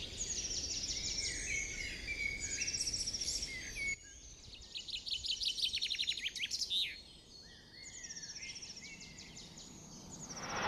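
Forest birds singing: a series of rapid, high trills and chirps, with a sudden change in the background about four seconds in. Near the end a rising rush comes in as a car approaches on the road.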